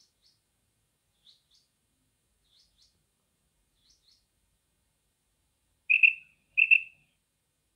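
Female common quail calling, the call used to draw quail in hunting: soft, high double notes about every second and a half, then two loud calls close together near the end.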